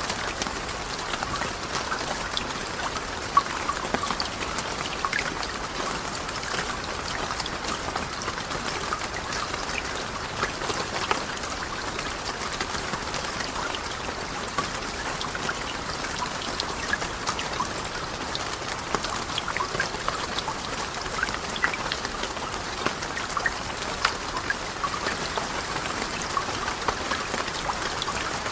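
Steady rain, with many small drops ticking on a surface and no let-up.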